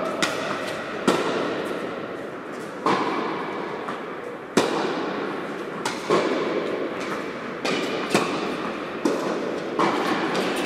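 A tennis rally: the ball struck by rackets and bouncing on the hard court, about ten sharp knocks at irregular intervals, each echoing in the large indoor hall. The loudest comes about halfway through.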